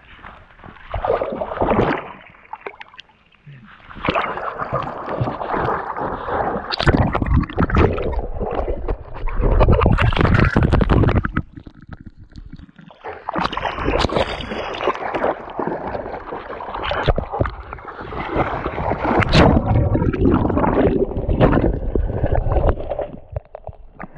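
River water splashing and sloshing in irregular bouts, with wind buffeting the action camera's microphone.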